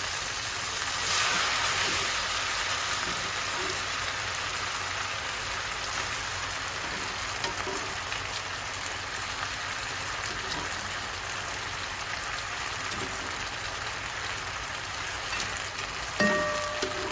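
Food sizzling steadily in a frying pan, a little louder about a second in, with a few faint knocks. Near the end a short electronic beep sounds.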